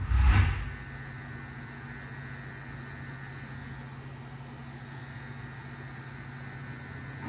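Electric tattoo machine running with a steady, even buzz as it lines a tattoo. A brief, loud rush of noise comes at the very start.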